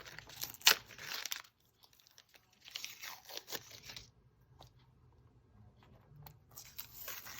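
Tape being peeled off a painted leather sneaker: three stretches of ripping, with a few sharp snaps as strips come free, separated by quiet pauses.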